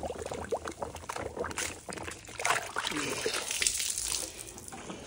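Chenille microfiber wash mitt sloshed and swirled in a bucket of soapy water, then lifted out with water pouring and dripping off it; irregular splashing that eases near the end.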